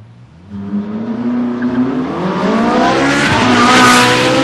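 A car engine accelerating hard, its pitch climbing and its exhaust note growing louder toward the end.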